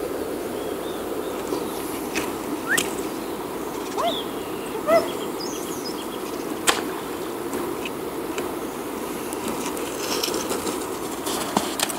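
Footsteps on a dirt river bank over a steady low rush of outdoor ambience, with a few sharp clicks and a handful of short rising chirps about three to five seconds in.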